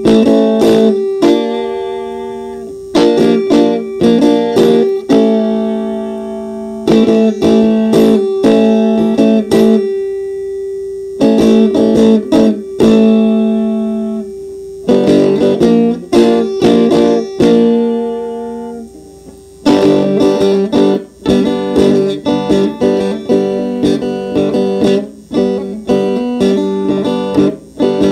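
Handmade electric banjo being picked: phrases of plucked notes, each ending on a held note that rings and dies away. The playing turns faster and busier for the last several seconds.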